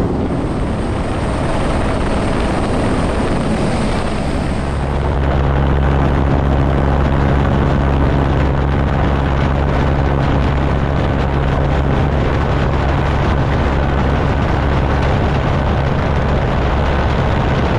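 Rescue helicopter hovering directly overhead during a hoist lift, heard from the hoist line beneath it: a loud, steady rotor and engine drone that grows louder about five seconds in.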